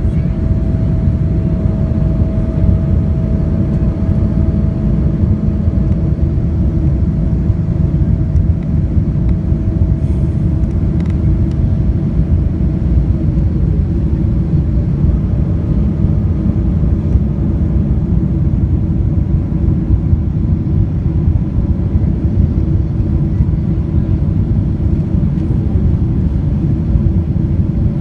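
Steady low rumble of a Boeing 777-200ER's engines and airflow heard inside the cabin. A faint whine slides down in pitch about halfway through.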